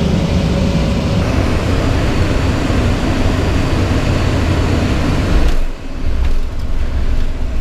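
Steady noise of a private jet's cabin in flight, a loud rushing hum of airflow and engines. About five and a half seconds in it changes abruptly to a lower, duller rumble with a few light clicks.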